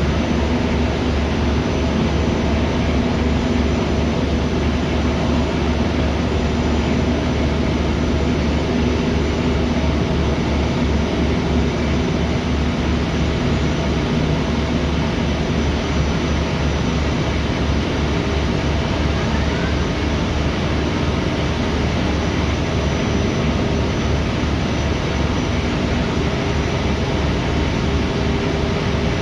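Ferry's engine running steadily: a loud, even rumble with a low, regular throb and a constant hum.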